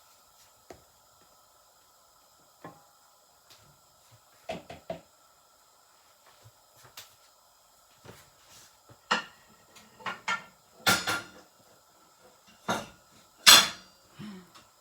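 Scattered clinks and knocks of a utensil against a frying pan while a pancake is being turned, sparse at first and then louder and more frequent in the second half. A faint steady high tone runs underneath.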